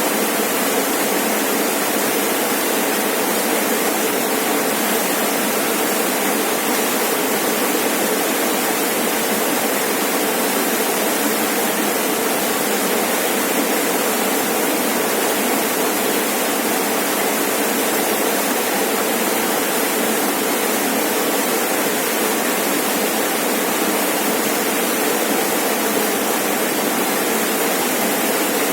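Rainforest waterfall: water falling steadily with an even rushing noise that does not change.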